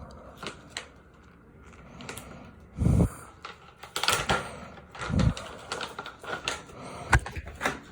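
Plastic packaging of turkey bacon being crinkled and pulled at as someone struggles to open it: irregular crackles and clicks, with two dull thumps about three and five seconds in.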